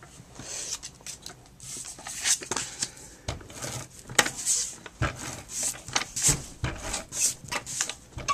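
Handheld ATG adhesive tape gun run along the edges of a cardstock layer: an uneven string of sharp clicks and short rasps, with paper handling on a cutting mat.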